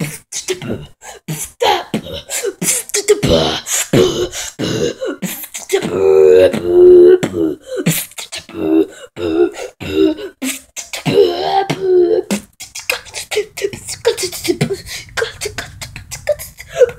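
A person beatboxing right up against a phone's microphone: a fast run of percussive mouth clicks and pops, twice joined by held hummed or sung notes lasting about a second.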